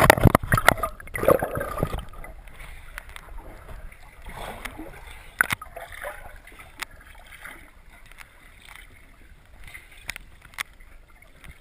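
Water splashing and sloshing as a swimmer moves through a cave pool, loudest and busiest in the first two seconds, then quieter lapping with a few sharp isolated clicks.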